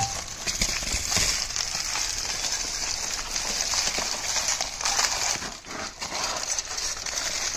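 Aluminium foil crinkling and crackling as hands press and fold it over a bed of leaves around a stick, with many small clicks.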